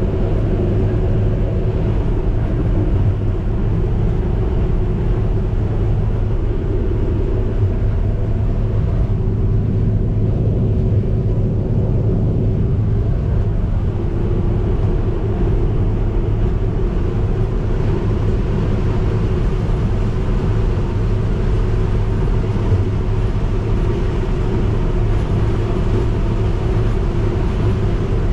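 New Holland CX5090 combine harvester running steadily under load while harvesting corn, its engine giving a constant low hum.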